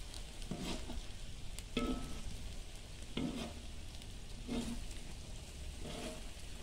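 Metal perforated skimmer scraping and turning rice in an oiled kazan for plov, five strokes about a second and a half apart, over a faint sizzle of the rice frying in hot oil.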